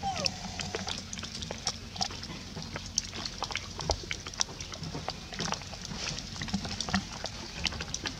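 Light rustling and scattered small clicks as a baby long-tailed macaque handles and chews leaves from a vine, with one short falling squeak right at the start.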